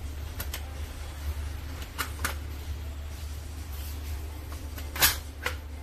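Clicks from a stainless-steel pressure cooker's pressure-regulator knob and lid-handle lock being worked by hand: two pairs of light clicks, then the loudest click about five seconds in and one more just after, over a steady low hum.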